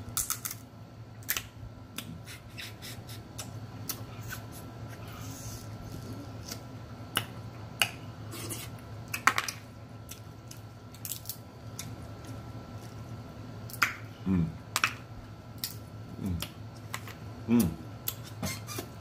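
Snow crab legs being cracked and picked apart by hand close to the microphone, with irregular sharp crackles and snaps of shell mixed with chewing and lip-smacking clicks. A few brief vocal sounds come near the end.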